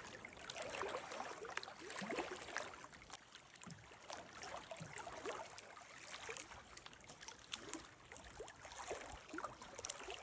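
Faint water lapping and gurgling around a kayak: many small irregular splashes and bubbling drips.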